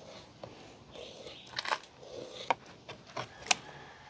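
Knife cutting into a whole fish on a plastic cutting board: a scatter of crisp crunches and sharp clicks as the blade goes through skin and scales, the sharpest about two and a half and three and a half seconds in.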